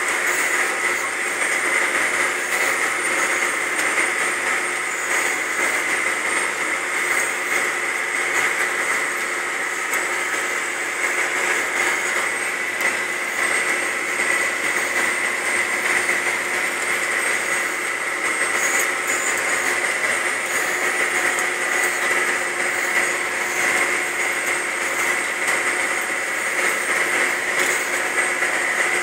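Tractor engine running steadily under load while pulling a disc through a field, heard from inside the cab as a constant drone with a steady whine.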